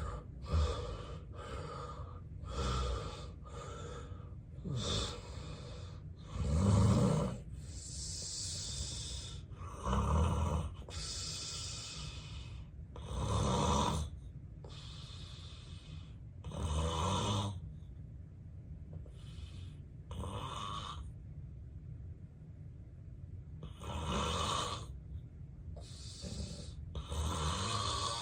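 Heavy snoring from a man with severe obstructive sleep apnea: loud, rough snores every few seconds, with a quieter, sparser stretch about two-thirds of the way through.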